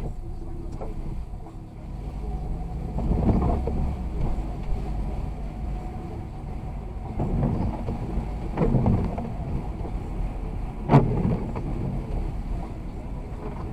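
Car driving, with a steady low rumble of engine and tyres. It swells louder a few times, and there is a sharp click about eleven seconds in.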